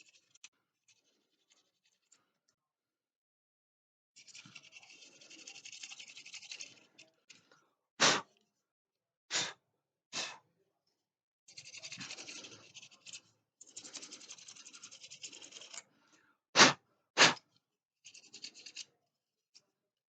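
A small brush scrubbing dust from a Lenovo IdeaPad 510s laptop's cooling fan, in several stretches of dry, rapid scratching. Five short, louder bursts of noise come between them, three around the middle and two near the end.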